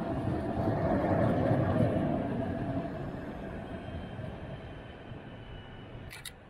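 Alstom Citadis Dualis electric tram-train running past and pulling away. Its rolling and traction noise peaks about two seconds in, then fades steadily as it recedes.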